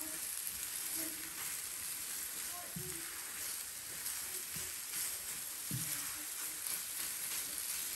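Scrambled eggs sizzling with a steady hiss in a nonstick frying pan as they are stirred with a silicone spatula.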